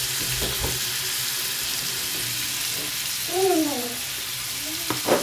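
Liver and tomatoes sizzling steadily in an aluminium pan on a gas burner, with a wooden spatula stirring and knocking against the pan about half a second in. A brief voice-like sound rises and falls about three and a half seconds in.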